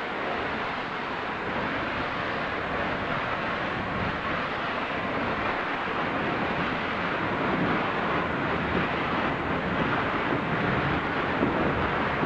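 A steam-hauled train running past, a steady rushing noise that grows slightly louder toward the end.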